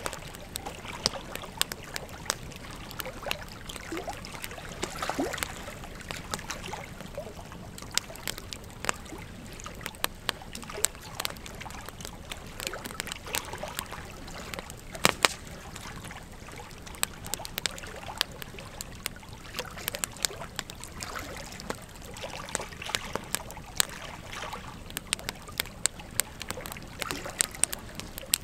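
Log fire burning, with a steady soft hiss of flame under frequent irregular sharp crackles and pops of the burning wood; one louder pop about halfway through.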